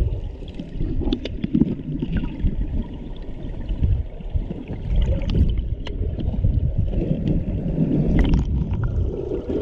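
Muffled underwater rumble of river current picked up by a submerged camera, with scattered small clicks and taps.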